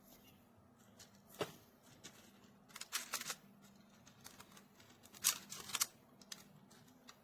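Small magnetic toy cubes clicking and clacking as they are handled, in a few separate sharp clicks and short rattling clusters.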